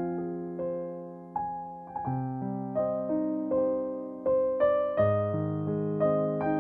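Background piano music: a slow melody of struck notes over held chords.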